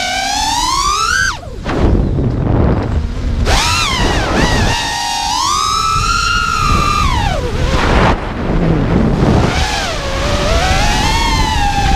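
Brushless motors and propellers of a GEPRC LX5 five-inch FPV quadcopter whining, the pitch swooping up and down with the throttle and dropping away sharply just over a second in. Wind rushes over the microphone underneath.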